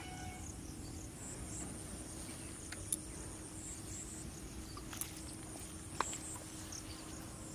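Insects chirring steadily, a high pulsing buzz, over a faint steady low hum. A few sharp clicks break through, about three, five and six seconds in.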